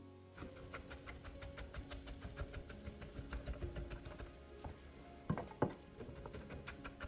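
Chef's knife chopping tomatoes on a wooden cutting board: rapid, steady knife strokes against the board, with two louder knocks about five seconds in.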